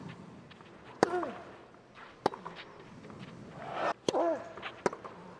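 Tennis ball hit with rackets during a rally: several sharp ball strikes about a second or so apart, two of them with a player's grunt.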